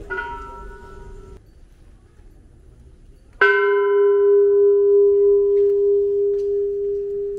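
A temple bell struck twice. The first ring is cut short after about a second and a half, then a loud strike about three and a half seconds in rings on with a slow, wavering hum that fades gradually.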